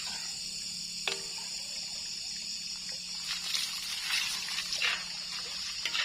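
Water trickling and splashing, with a few short splashes from about three seconds in, over a steady high hiss.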